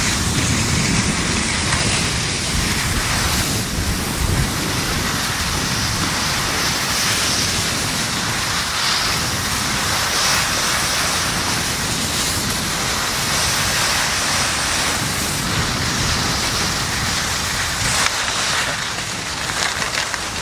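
Steady rushing noise of wind buffeting the microphone, mixed with the hiss of cross-country skis gliding over snow.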